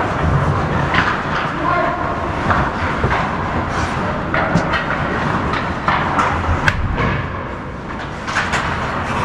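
Hockey game noise: a steady rink din with sharp clacks of sticks and puck scattered throughout, and players' voices calling out.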